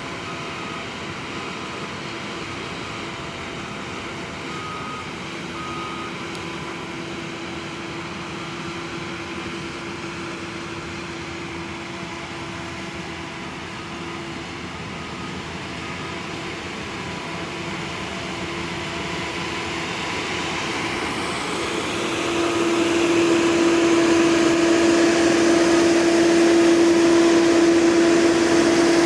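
Stump grinder running: a steady engine hum holding one pitch, growing markedly louder about 22 seconds in. A few faint short beeps sound in the first six seconds.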